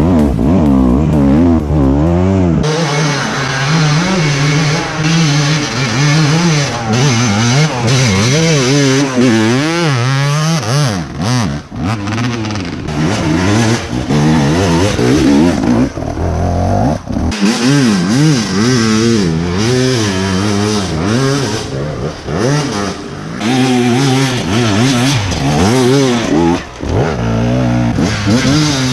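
Enduro dirt-bike engine revving hard and falling back again and again as the throttle is worked on a climb, the pitch constantly rising and dropping. The sound shifts abruptly a couple of times.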